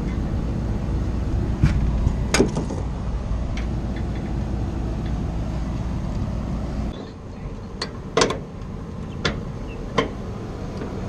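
Scattered sharp metal clinks and knocks of hand tools and a bearing puller on the blower shaft, as a blower bearing is pulled. Under them runs a steady low rumble that drops away about seven seconds in.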